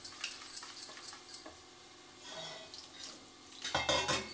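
Quick clinking of a metal whisk or spoon against a steel bowl as besan is beaten into a batter, then a short rush of water poured into the bowl near the end.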